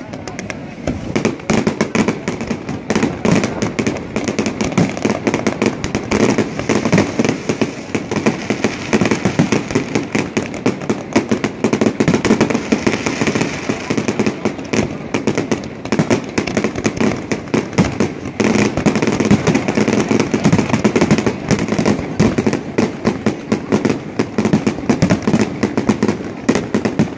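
Fireworks display: an unbroken, dense run of bangs and crackles as many rockets and shells go off in quick succession.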